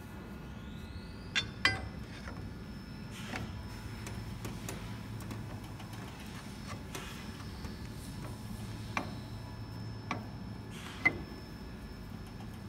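Scattered light metal clicks and knocks as gloved hands handle the blade and blade bar of a guillotine paper cutter, over a steady low hum. There are two clicks close together about a second and a half in, and the sharpest one comes near the end.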